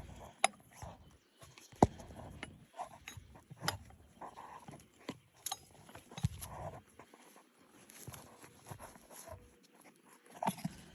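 Scattered sharp metal clicks and clinks of a wrench working the locked nuts on a bolt, with a few short animal calls between them.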